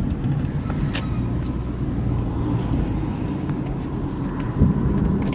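Steady low rumble of a car's idling engine heard from inside the cabin, with a brief low thump near the end.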